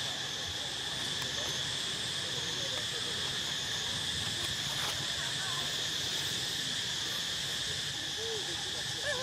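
Steady high-pitched insect chorus, a continuous drone that doesn't change, with a few short chirping calls near the end.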